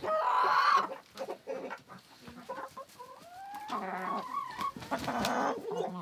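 Chickens clucking and calling, a string of separate calls with some rising in pitch; the loudest call comes right at the start.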